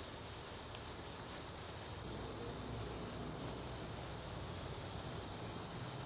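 Quiet outdoor ambience: a steady hiss with a few faint, short high-pitched chirps scattered through it.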